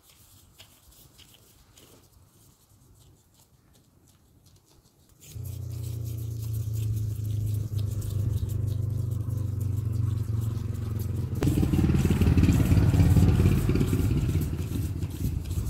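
An engine running steadily, starting suddenly about five seconds in and getting louder and fuller about eleven seconds in. Before it, faint quiet ticks.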